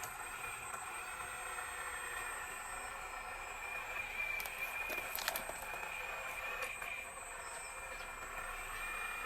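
Scale RC excavator's electric hydraulic pump whining steadily, with a few sharp clicks about halfway through.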